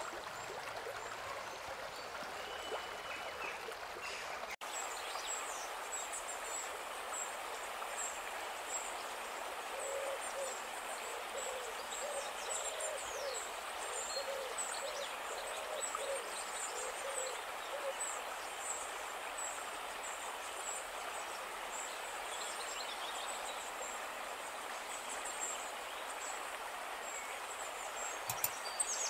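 Steady rush of a rocky mountain creek, over which a bird hoots in a series of short, low notes about twice a second for several seconds, with faint high bird chirps throughout. A few soft thumps come near the end.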